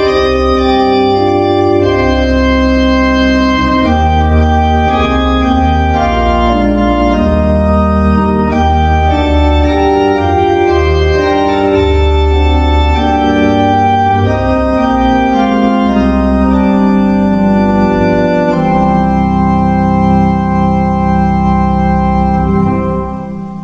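Organ music: full sustained chords over a held bass line, changing chord every second or two, fading away near the end.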